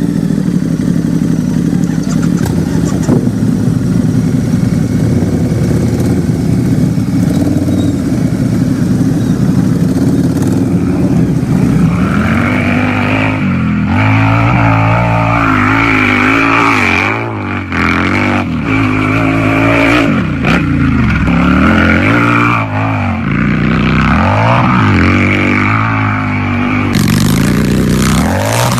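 Harley-Davidson motorcycle's V-twin engine idling with a steady rumble, then revved over and over from about twelve seconds in, its pitch rising and falling with each blip of the throttle.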